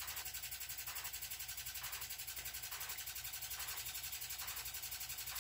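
A steady low background hum with a fast, even flutter and a faint hiss over it.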